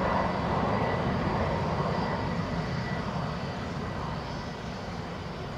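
Boeing 747-400 jet engines running: a steady rumble with a thin high whine on top, slowly growing fainter.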